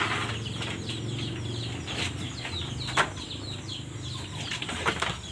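Many short high chirps from birds, over a steady low hum, with a couple of sharp knocks about two and three seconds in.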